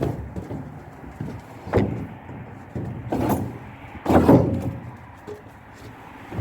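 Four heavy thumps or bangs about a second or two apart, the last and loudest with a longer rattle, over a steady low rumble.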